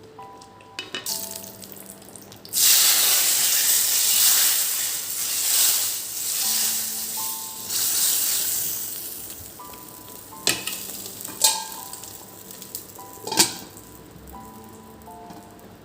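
Food going into hot oil in a pan: a loud sizzle starts suddenly about two and a half seconds in, then slowly dies down. A few sharp clicks come near the end, over soft background music.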